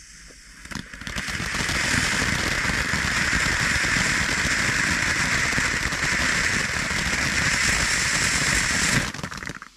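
Fireworks crackling: a dense run of rapid pops that builds about a second in, holds steady, and stops abruptly near the end.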